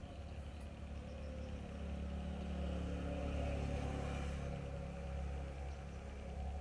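A motor vehicle's engine running, growing louder to a peak about halfway through and then easing off, as a vehicle passing by does.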